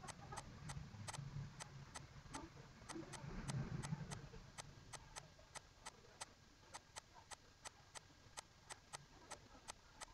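Faint, rapid, even ticking at about three to four clicks a second, over a low background rumble that swells briefly about three to four seconds in.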